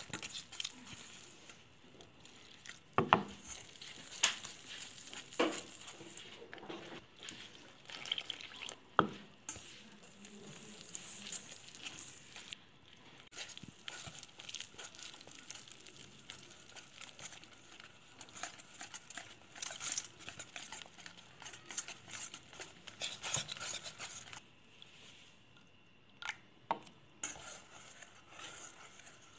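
Wire whisk stirring gram flour and water into batter in a stainless steel bowl: soft wet stirring with scattered sharp clinks of the whisk against the bowl.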